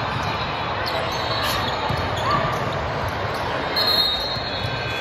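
A ball bouncing on an indoor court over a steady background of crowd noise, with scattered sharp knocks and a short high-pitched squeak about four seconds in.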